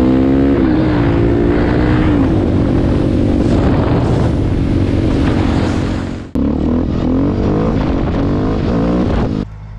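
Motorcycle engine pulling up in pitch through the first second, then running steadily at road speed. About six seconds in the sound breaks off and a second dirt bike's engine takes over, running steadily until it drops away just before the end.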